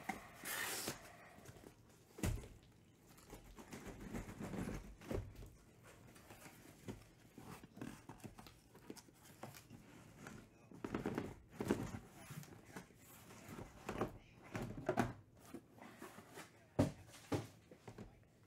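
Cardboard handling: the flaps of a cardboard shipping case scraping and rustling as they are opened, then sealed cardboard hobby boxes slid out and set down with irregular knocks and thunks.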